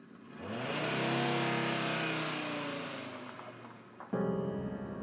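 A van's engine revving up as it pulls away, its pitch rising about half a second in, then fading as it drives off. About four seconds in, piano music cuts in abruptly.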